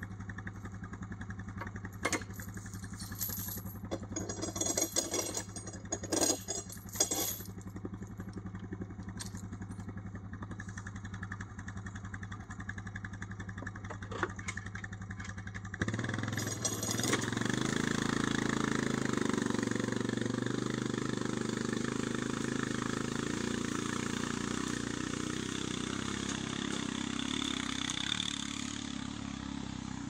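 ATV engine idling steadily, with sharp knocks and rattles over it during the first half. About halfway through it revs and the ATV pulls away towing a log on a homemade sled, the engine sound fading near the end as it moves off.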